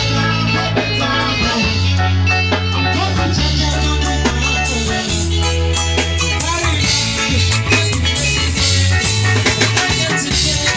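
Live band playing through a PA system: bass guitar, electric guitar, keyboard and drum kit, with a singer on microphone.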